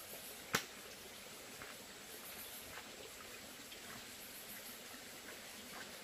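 Forest stream water running steadily over a concrete weir, a faint even hiss with a high, faintly pulsing buzz above it. About half a second in comes one sharp tap, the loudest sound, followed by a few faint ticks, fitting sandalled footsteps on the wet concrete.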